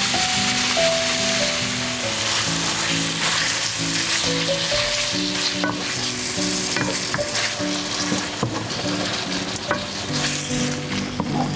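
Raw chicken breast strips sizzling as they fry in hot melted butter, stirred and pushed around the pan with a wooden spatula that gives occasional light clicks and scrapes against the pan. Soft background music with held notes plays underneath.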